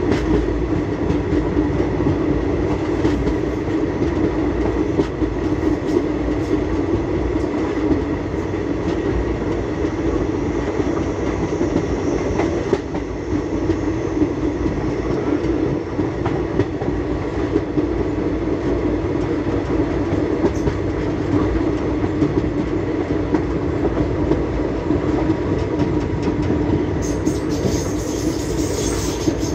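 Indian Railways express passenger train running at speed, heard from an open coach doorway: a steady rumble of wheels on the rails with faint clicks.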